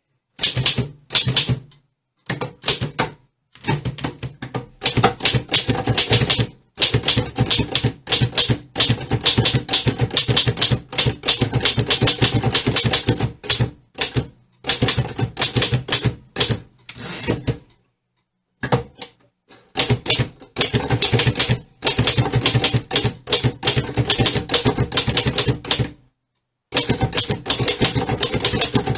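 Typewriter typing: fast runs of sharp key strikes in several bursts, each broken off by a short, sudden silence.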